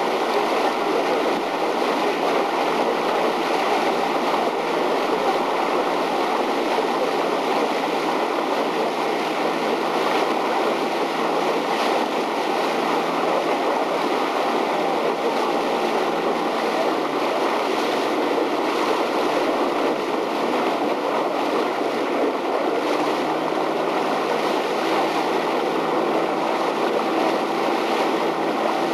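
Motorboat running steadily on the water: an even rush of water and wind with a low, steady engine hum underneath.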